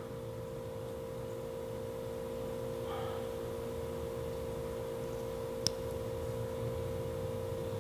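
Steady electrical hum with a clear, even pitch, and a single short click about two-thirds of the way through.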